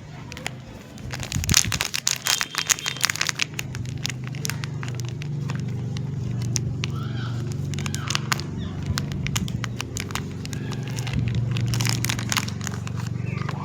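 Soap wrapper crinkling and crackling in bursts as it is handled and torn open, loudest early on and again near the end, over a steady low hum.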